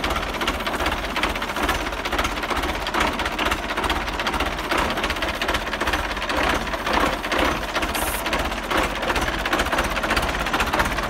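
2002 Belarus 820 tractor's four-cylinder diesel engine idling with a steady, rapid clatter.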